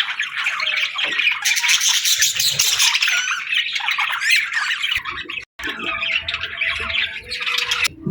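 Budgerigars chattering and warbling nonstop, with quick chirps and squawks. The sound cuts out for a moment about five and a half seconds in.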